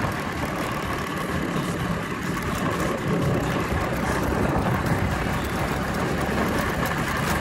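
Vintage Bajaj Chetak scooter's two-stroke single-cylinder engine running steadily while the scooter is being ridden.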